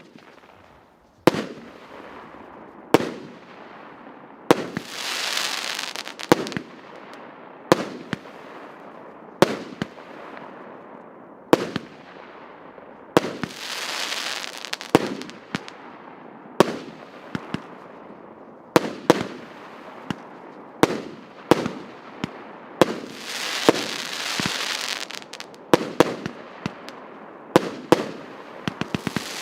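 A 25-shot, 1.25-inch firework battery (cake) firing shot after shot, a sharp bang about every one and a half to two seconds. Several bangs are followed by a few seconds of crackling, and the shots come faster near the end.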